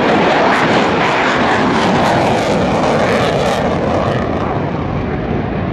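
Mitsubishi F-2 fighter's single turbofan engine roaring as the jet flies its display, a loud, steady rush of noise that slowly fades over the last couple of seconds.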